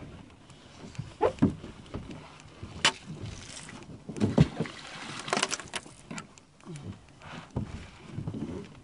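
Irregular knocks and clunks of a person shifting and moving about inside a plastic sit-on kayak, with clothing brushing against the hull.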